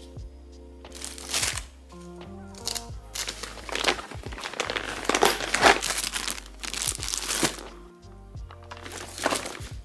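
Plastic zip-top bag and fabric lunch bag rustling and crinkling in several bursts as food is packed, over background music with a steady bass.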